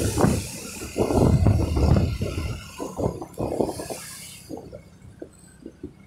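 Wind buffeting the microphone and road noise while riding a motorbike, a rushing hiss with uneven low gusts. It dies down about four and a half seconds in, leaving a few fainter thumps.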